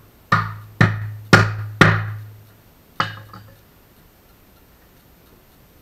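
Five hard knocks on wood: four about half a second apart, then a fifth a second later. Each knock leaves a low ring that fades over about half a second.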